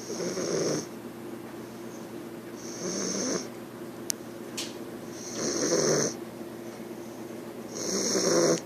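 English bulldog puppy snoring: four snores, one about every two and a half seconds.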